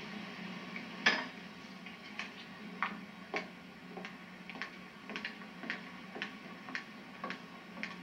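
Footsteps of shoes on a polished wooden dance floor, about two steps a second, the first one louder. A steady low hum runs underneath.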